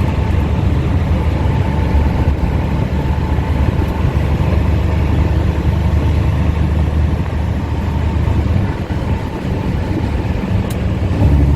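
Dump truck engine running steadily at a low, even note, with a brief dip about nine seconds in and the note changing and growing louder near the end.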